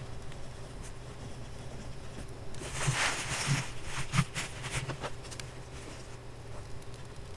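Fine steel nib of a copper pocket fountain pen scratching across paper as words are written, in a run of short strokes for a couple of seconds in the middle.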